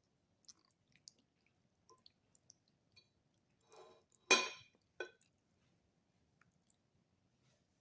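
A person eating: scattered small mouth and utensil clicks, with one louder clink about four seconds in and a smaller one a moment later.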